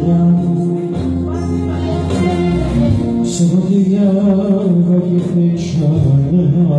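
A man sings into a microphone over amplified backing music. His melody wavers and is ornamented, with long held notes.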